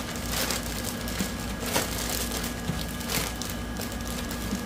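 Thin clear plastic bag crinkling in a series of short rustles as a fluffy faux-fur mini rug is pushed and pressed into it.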